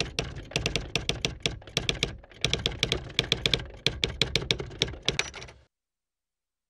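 Typewriter keystroke sound effect: quick runs of sharp key clicks, about five or six a second, with a short pause about two seconds in, that cut off suddenly near the end.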